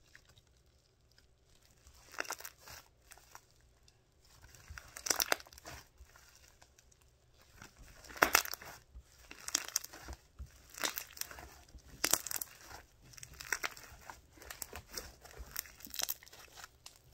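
Homemade slime of conditioner, baby powder and shaving cream being mixed and squished by hand: irregular wet crackling squishes, about one every second or two.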